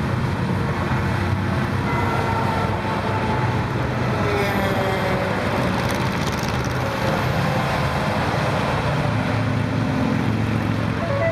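Steady interstate traffic noise of cars, motorcycles and semi-trailer trucks passing below. Tyre and engine noise falls gently in pitch as vehicles go by, and a semi truck passes close about halfway through.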